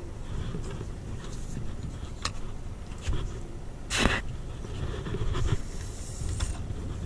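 Steady low wind rumble on the camera microphone aboard a small boat, with a few faint clicks from handling a spinning rod and line. About four seconds in comes a brief, loud swish as an arm sweeps across the camera during a cast.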